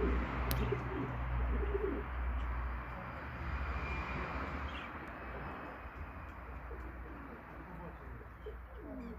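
Old Dutch Capuchine pigeons cooing, low and wavering, mostly in the first two seconds and again near the end, over steady background noise.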